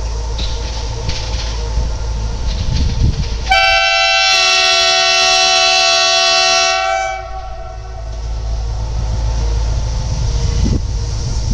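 PESA SA106 diesel railbus approaching with its engine rumbling, sounding its horn in one steady blast of about three and a half seconds, starting a little after three seconds in.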